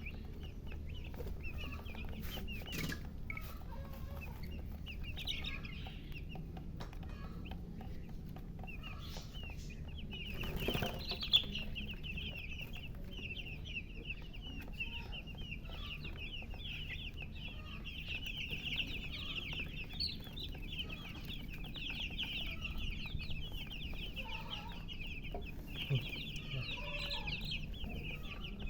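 A brood of baby chicks peeping in rapid, high chirps, sparse at first and then dense and continuous from about a third of the way in, with a hen clucking at times. A single sharp knock stands out partway through, over a steady low hum.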